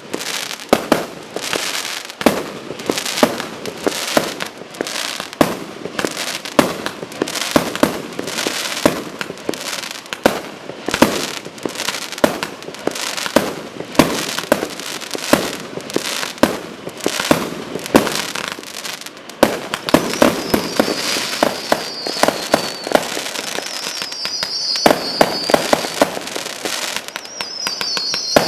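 Firework cakes and barrages firing continuously: a dense, rapid string of bangs and reports with no break. From about two-thirds through, a high wavering whistle joins in three times.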